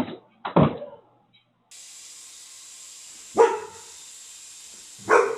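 Dog barking in short single barks, four in all, the last two over a steady hiss.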